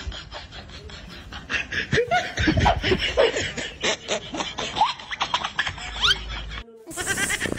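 People laughing in quick breathy pulses, with a few short rising squeaks. The sound cuts off briefly near the end.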